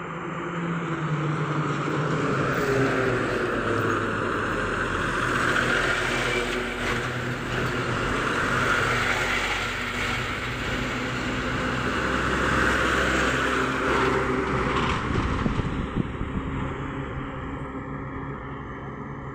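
Heavy diesel trucks passing on a highway: steady engine drone and tyre noise that builds in the first couple of seconds, swells several times as vehicles go by, and fades near the end.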